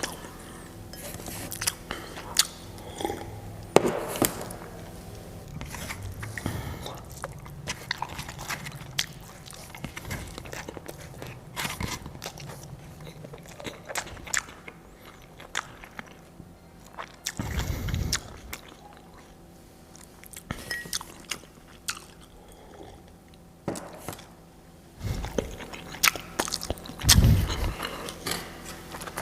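Person eating close to the microphone: chewing and biting, with many sharp crunches and clicks and a few duller thumps in the second half.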